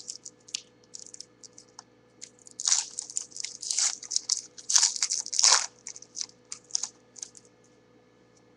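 A foil trading-card pack being crinkled and torn open by hand: a run of short, high crackling rustles that is thickest and loudest in the middle and then stops.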